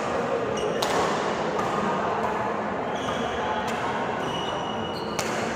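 Badminton rackets hitting a shuttlecock during a rally, with a sharp hit about a second in and another near the end, and short high squeaks of shoes on the court floor in between, with murmured voices in the background.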